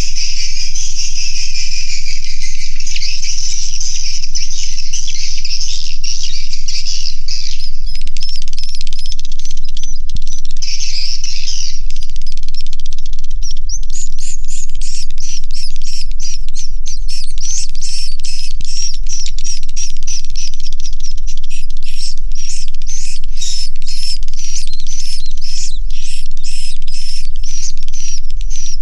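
A large colony of edible-nest swiftlets calling inside a swiftlet house: a dense, high twittering chorus, which about halfway through gives way to a rapid run of short clicking chirps.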